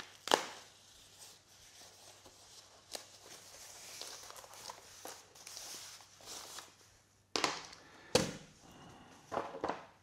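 A foam packing sheet being unwrapped by hand: tape peeled off and the foam rustling, with a few sharp handling knocks, the loudest about a third of a second in and two more about seven and eight seconds in.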